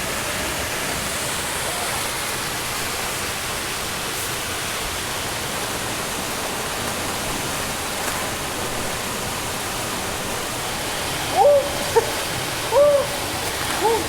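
Waterfall rushing steadily, an even hiss of falling water. Near the end a person's voice makes three short sounds over it.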